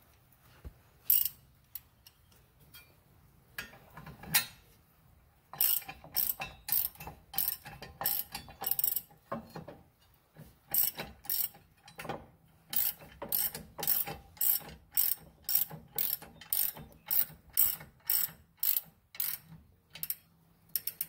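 Hand ratchet clicking as it turns the steering box skid plate bolts: a few scattered clicks at first, then from about five seconds in a steady run of ratcheting strokes about two a second.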